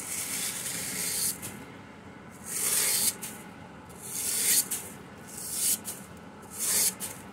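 A paintbrush sweeping steel swarf and chips off a lathe's cross-slide, about five quick scratchy swishes.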